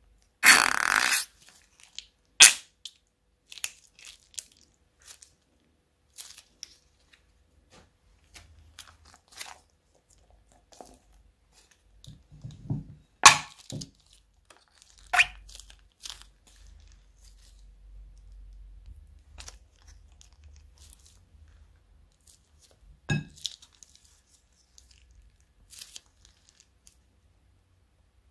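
Plastic zip-lock bags crinkling and crackling as they are handled and squeezed out over a glass bowl: a dense crinkle for about a second at the start, then scattered sharp cracks and softer rustles.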